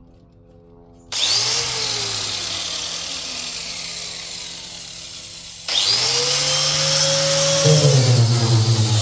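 Handheld electric power tool switched on about a second in, its whine spinning up and then slowly winding down. It is switched on again near the middle, spins up to a steady whine, and its pitch dips about a second before the end.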